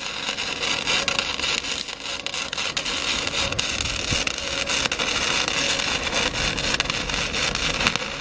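Electric arc welding on steel: a steady sizzling hiss broken by irregular sharp crackles and pops as the bead is laid.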